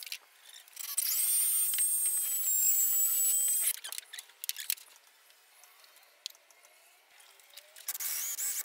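A power tool runs with a steady high whine for about two and a half seconds, then stops. Near the end an electric drill starts boring into a block of wood.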